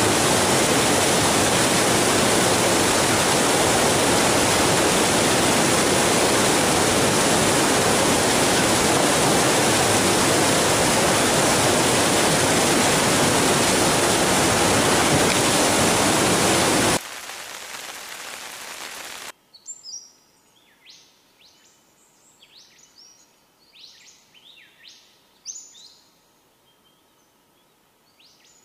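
Loud, steady rush of river water cascading between boulders in a rapid, which cuts off abruptly about 17 seconds in. After a short quieter hiss, the rest is near quiet with birds calling in short chirps.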